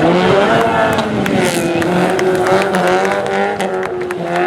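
Rally car engine running at high revs, its pitch dipping and rising as the driver lifts and gets back on the throttle, with scattered sharp clicks.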